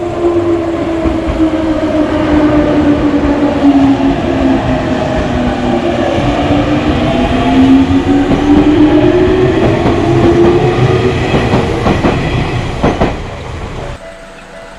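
A train passing: a steady rattling clatter of wheels, with a pitched whine that slides down and then back up. The sound drops away abruptly about a second before the end.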